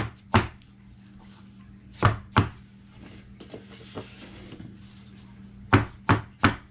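Two wooden soap loaf molds with silicone liners, full of fresh cold process soap batter, banged down on a table: sharp thumps in twos and threes, two at the start, two about two seconds in and three near the end. The banging settles the batter and knocks out trapped air.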